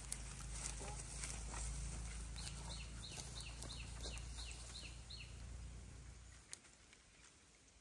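A bird calling a quick run of about nine short, high, falling notes, roughly three a second, over a low rumble that fades out near the end.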